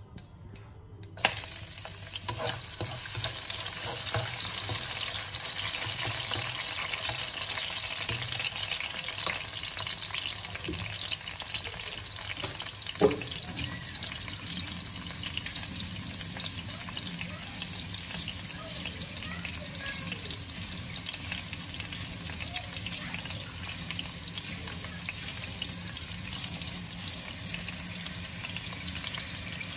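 Chopped garlic sizzling in hot oil in a wok. The steady sizzle starts suddenly about a second in as the garlic hits the oil, with a couple of sharp knocks, the loudest about thirteen seconds in.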